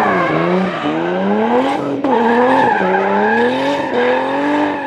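Turbocharged BMW E36 drift car's M50 straight-six revving hard, its pitch rising and falling as the throttle is worked, with a sharp lift about two seconds in. Tyres squeal under it as the car slides sideways.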